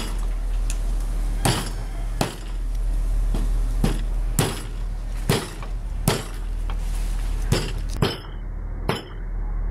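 Meat cleaver chopping raw chicken on a wooden chopping block: about ten sharp chops at an uneven pace, roughly one a second.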